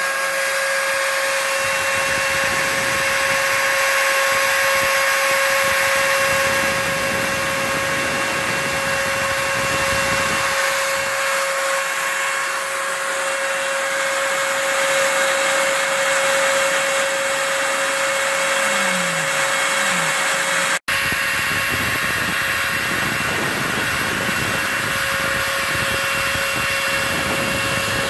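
Router spindle of a home-built CNC mill running with a steady whine as it mills plaster, mixed with the steady rush of a shop vacuum on the dust hose. The sound breaks off for an instant about three quarters of the way through, then carries on.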